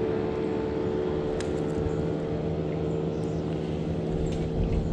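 Boat motor running steadily: a constant hum at a fixed pitch over a low rumble.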